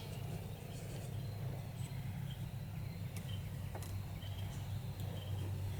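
Quiet background: a steady low hum with a few faint, short high chirps and an occasional light click.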